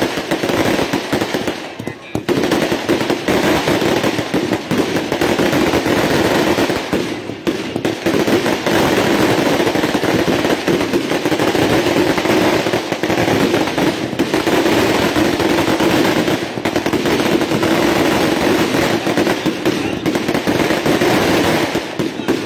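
A long string of firecrackers going off in rapid succession: a dense, continuous crackle of bangs.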